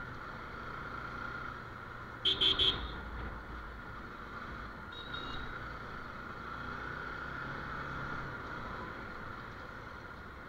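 Motorcycle engine running steadily while riding, heard from the rider's helmet. A little over two seconds in a horn beeps three times in quick succession, and a fainter horn toots briefly about five seconds in.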